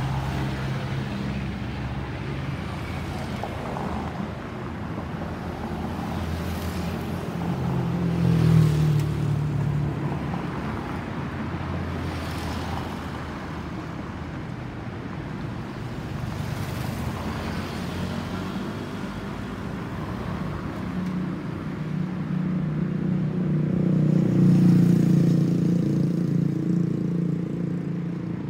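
Low, steady engine rumble of road traffic and distant jet noise. It swells loudly twice, about a third of the way in and again in the last few seconds, as vehicles or the climbing Boeing 737-800 pass.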